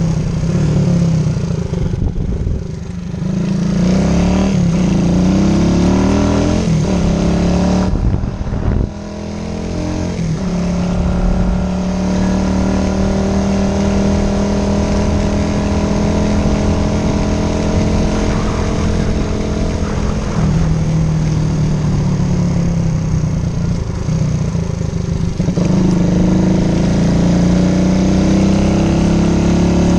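A 1978 Honda CG 125 motorcycle's single-cylinder four-stroke engine running on the road. Its note rises and falls several times as it speeds up and eases off, with a steadier stretch in the middle and a brief drop about eight seconds in.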